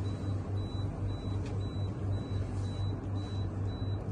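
Steady low hum pulsing about four times a second, with a faint high tone repeating in short dashes.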